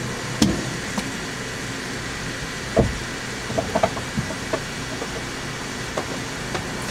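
Petrol pump dispensing fuel into a car's tank as it is topped off: a steady noise with a few short clicks and knocks, the clearest about half a second in, near three seconds and a cluster near four seconds. Heard from inside the car.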